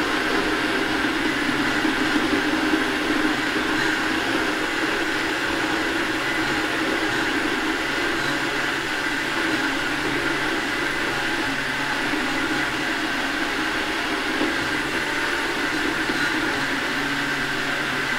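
Countertop blender motor running steadily at speed, blending a hot strawberry-and-cream ice cream base until smooth.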